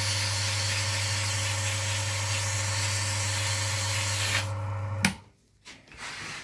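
Electric motor of an oil friction-test rig running with a steady hum, with a hissing rub from the spinning roller as the previous test's scuff is cleaned off. The rubbing stops a little after four seconds in, and about a second later a click and the motor cuts off.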